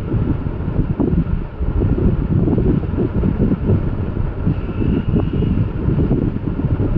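Low, unsteady rumble of air buffeting the microphone, with a faint thin tone about two thirds of the way through.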